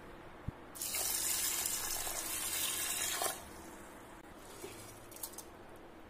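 Tap water runs into a pot of brown rice and green gram for about two and a half seconds to rinse the grains. A few faint clicks follow.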